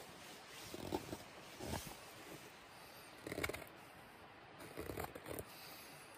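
Morakniv carbon-steel knife shaving seasoned pear wood as a fork is whittled: a few short, irregular cutting strokes, the loudest about three and a half seconds in.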